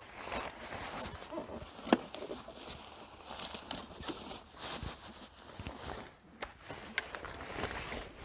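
Motorcycle cover being pulled off the bike: the fabric rustles and crinkles as it is lifted and dragged, with scattered small clicks and one sharp click about two seconds in.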